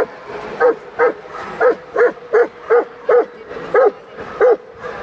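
A dog barking repeatedly: about ten short barks, two to three a second, each rising and falling in pitch, over the murmur of the hall.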